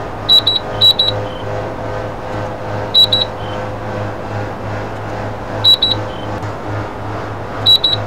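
Air conditioner running with a steady low hum, while short high electronic beeps come in quick pairs or triplets, each ending on a slightly lower beep, five times at irregular gaps of about one to three seconds.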